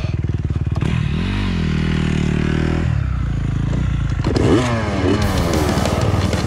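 KTM two-stroke motocross bike's engine, heard close up from on board, revving up and down several times as it is ridden over bumpy ground.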